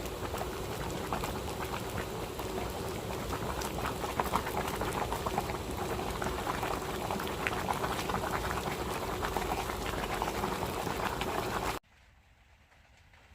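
Liquid bubbling and fizzing with dense small crackles, steady throughout, then cutting off abruptly near the end.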